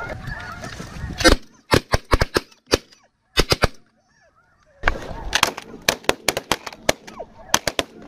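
Snow geese honking, then several shotguns firing in rapid volleys at the flock: many sharp blasts in two clusters, with a short quiet gap between them.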